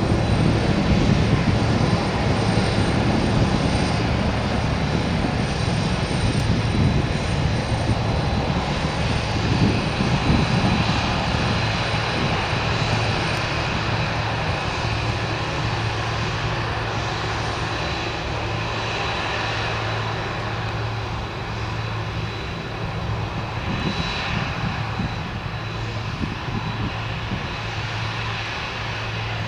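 Jet engines of a Boeing 747-400F freighter running steadily with a low hum and a faint high whine, slowly fading.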